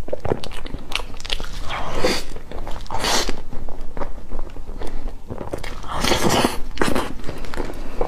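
Close-miked wet mouth sounds of eating a cream-filled pancake: chewing and lip-smacking with many small clicks, and a few longer sucking sounds as whipped cream is licked off the fingers.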